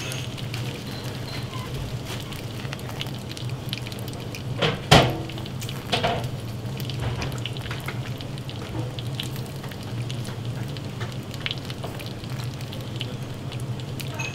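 Bacon strips sizzling in their fat on a flat-top grill: a steady crackling hiss of small pops, with two louder sharp cracks near five and six seconds in.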